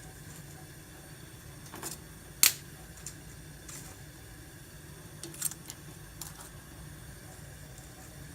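Cooking utensils clinking against a pan as chicken pieces are moved into gravy: a handful of sharp, irregular metallic clicks, the loudest about two and a half seconds in, over a steady low hum.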